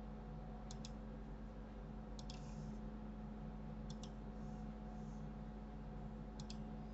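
Computer mouse clicks: four quick pairs of sharp clicks, each a button press and release, spaced a second or two apart, over a steady low electrical hum.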